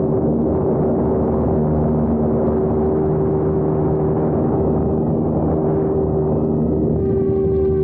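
Electric motor and rotor of a Yu Xiang F119S MD500 RC helicopter running in flight, heard from a camera carried inside its cockpit: a steady hum with a few held tones.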